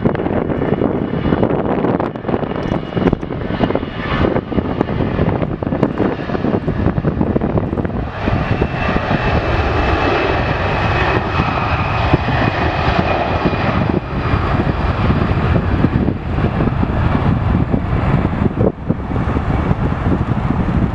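Jet airliner's engines at takeoff power during the takeoff roll, a steady loud rush with a faint whine, growing fuller about eight seconds in. Wind buffets the microphone throughout.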